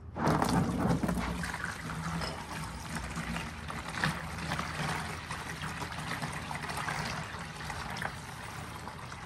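Liquid pouring steadily out of a Ford 302 engine's oil pan drain hole, starting suddenly as the drain opens; the pan is full of water rather than oil.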